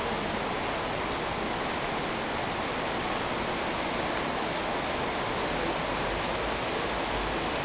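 Heavy rain falling steadily: an even, unbroken rushing noise that keeps the same loudness throughout.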